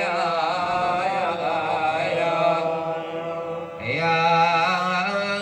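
A male radood chanting a Shia mourning lament, drawing out long ornamented notes with a wavering pitch. A new phrase begins after a short breath about four seconds in.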